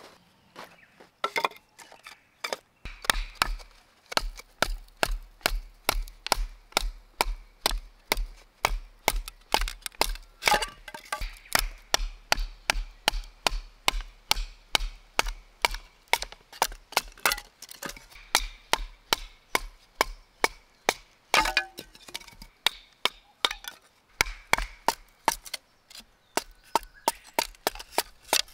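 A knife being batoned through firewood to split kindling: a long run of sharp wooden knocks, about two or three a second, as a wooden baton strikes the blade's spine.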